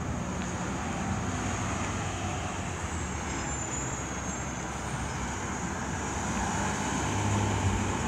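Street traffic noise: a steady hum of road vehicles with a low engine drone that swells a little near the end.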